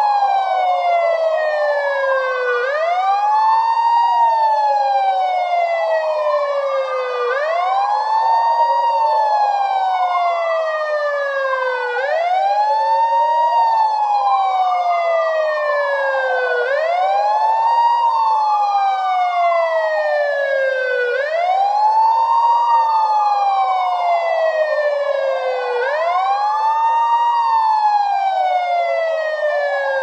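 Police siren wailing: a tone that rises quickly and falls slowly, over and over about every four and a half seconds, with a second wail overlapping out of step with the first.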